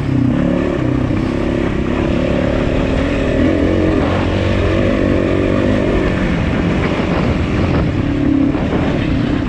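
Enduro motorcycle engine running under light throttle, its revs rising and falling a little as the bike rolls along the dirt track.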